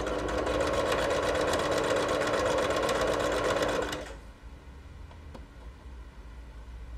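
Pfaff electric sewing machine stitching fabric: a steady, fast run of needle strokes over the motor's hum, which stops about four seconds in.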